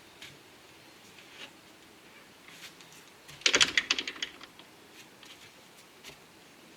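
Homemade wooden shed door being swung shut: a quick rattle of knocks and clicks lasting under a second, about halfway through, with a few faint taps either side.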